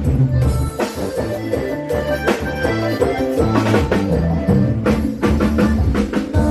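Loud Isan rock music from a rot hae sound-truck band, picked up by the camera's own microphone: a heavy bass line and steady drum beat with held instrument notes above.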